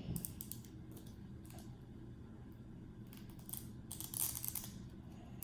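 Small plastic zippered blind bag being handled and unzipped: scattered faint clicks and plastic crinkling, with a short louder scraping rustle about four seconds in.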